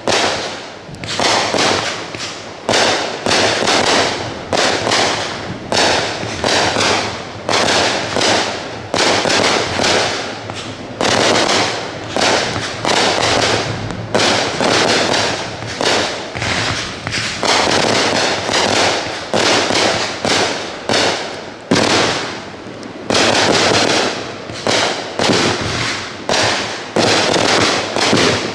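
Aerial firework shells bursting in a continuous barrage, loud bangs about once or twice a second with dense crackling between them.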